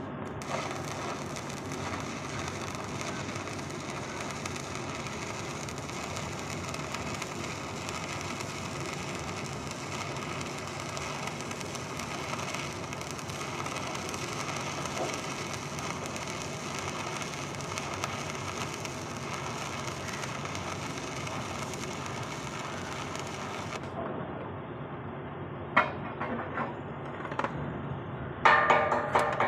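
Electric arc welding of a horizontal (2G) joint on a steel C-channel: a steady crackle and hiss that dies away about three-quarters of the way through. A few sharp clicks follow, and music with a percussive beat starts in the last second.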